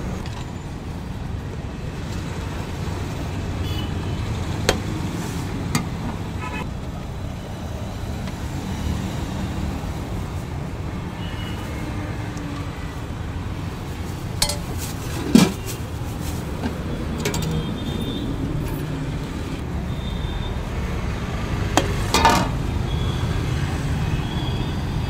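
Steady road traffic rumble, with a few sharp metallic clinks from serving spoons and ladles knocking against steel cooking pots, the loudest about halfway through.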